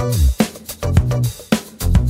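Background music with a steady beat and a gliding bass line.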